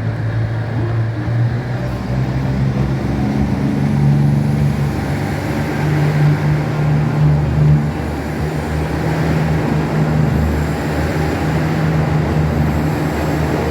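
Diesel railcar engines of a KiHa 85 series train running under load, a steady pitched drone whose note climbs and then drops about eight seconds in.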